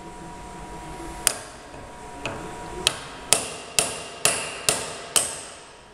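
Hammer blows on steel drill-chuck removal wedges, driving them between a Jacobs chuck and its taper arbor to break the taper apart: about eight sharp metallic strikes, each ringing briefly, coming faster toward the end. The taper is holding stubbornly tight under the blows.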